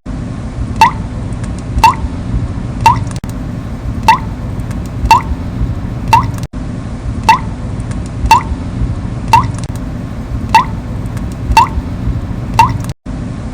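Water dripping from a leaky tap, one drop about every second, each a short plink rising in pitch, over a steady low background rumble.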